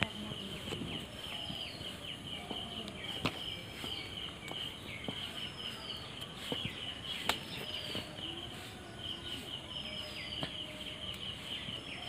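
Steady high-pitched insect trilling, with a short falling chirp repeating about every second and a half and a few sharp clicks.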